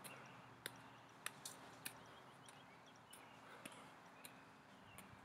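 Near silence, with faint soft taps a little more than half a second apart: juggling balls being caught and thrown by hand.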